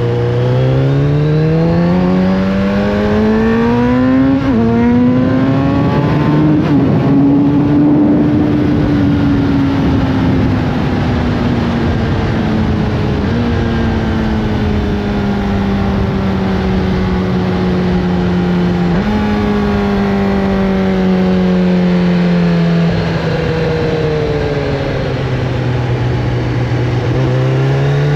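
Kawasaki Z900RS Café's inline-four engine under way: it revs up from the start, shifts up about four seconds in and pulls again, then eases off gradually. The revs step up around two-thirds of the way through, fall away, and climb again near the end, over a steady rushing noise.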